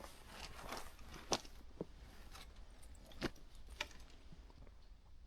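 Faint scattered crunches and sharp clicks, a few in all, the loudest about a second in and about three seconds in.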